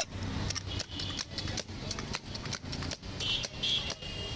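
Chanachur masala mix shaken inside a lidded steel cup, giving a run of quick, uneven knocks and rattles.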